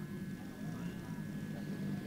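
The hidden Zenoah two-stroke petrol engines of a 1:6 scale Ford Trimotor RC model running steadily at low throttle as it taxis, growing slightly louder as it comes closer.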